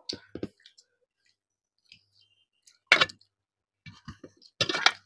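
Eating sounds from a meal eaten by hand: a few short clicks, then two louder clattering noises, one about three seconds in and a longer one near the end.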